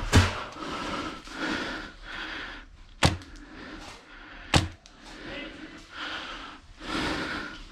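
Three sharp cracks of a suppressed Wolverine MTW HPA airsoft rifle firing: one at the very start, one about three seconds in and one about a second and a half after that. A quieter, uneven noise comes and goes between the shots.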